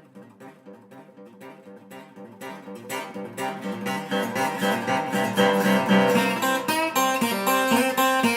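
Background music: plucked and strummed acoustic guitar, quiet at first and swelling louder from about three seconds in.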